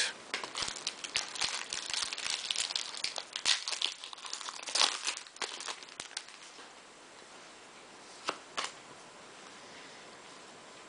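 Foil wrapper of a Bowman baseball card pack crinkling and tearing as it is opened by hand, dense crackly rustling for about six seconds. Then much quieter handling of the cards, with two short clicks about eight seconds in.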